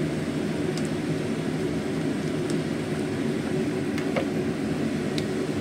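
Steady low hum from a kitchen appliance running beside the stove, with a few faint light clicks.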